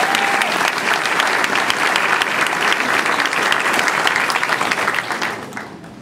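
Audience applauding, a dense clapping that dies away about five seconds in.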